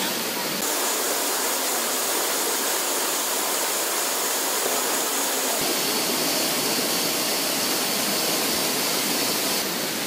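A waterfall pouring down a rock face into a plunge pool, its water rushing steadily.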